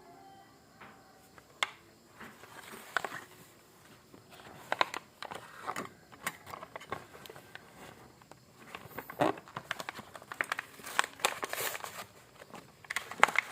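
A knife blade scraping through a manual knife sharpener in irregular short strokes, which get louder and closer together in the second half.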